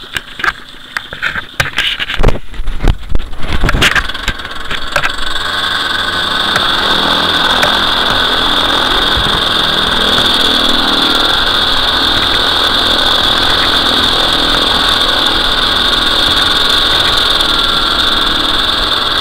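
Top 80 paramotor's two-stroke engine being started: a few seconds of irregular, uneven bursts as it fires, then from about six seconds in it runs steadily, with a strong high-pitched note over the engine sound.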